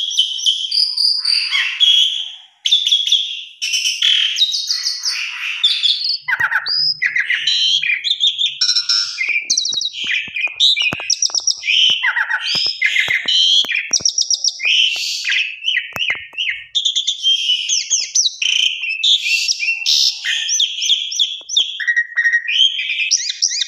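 Asian pied starling (jalak suren) singing a fast, varied medley of whistles, chatters and trills almost without pause, the full, mimicry-rich song that lure recordings use to get other starlings singing. Sharp little clicks are scattered through the middle of the song.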